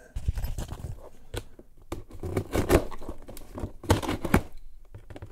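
A cardboard box being handled and cut open with a knife: irregular scraping, tearing and crinkling with scattered knocks.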